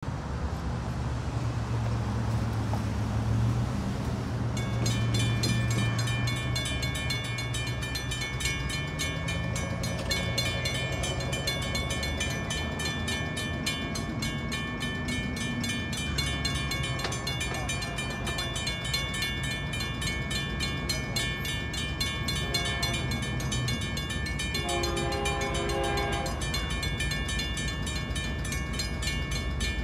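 WRRS railroad crossing bells start ringing about four seconds in, a rapid steady clanging as the crossing activates for an approaching train. Near the end, a distant train horn blows a few times.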